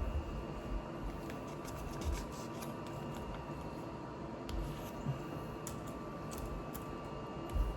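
Scattered small clicks and light knocks of plastic LEGO pieces being handled and pressed together, over a faint steady hum.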